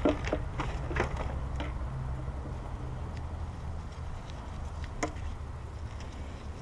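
A few light clicks and knocks of a plastic oil bottle being handled, over a steady low hum.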